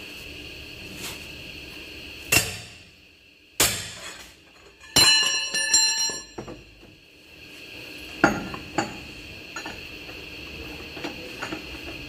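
Heavy steel tools clanking: a long steel cheater-bar pipe and socket wrench knocked and handled during lug-nut tightening on a truck wheel, with a ringing metallic clatter about five seconds in and single sharp knocks before and after. A faint steady high hum runs underneath.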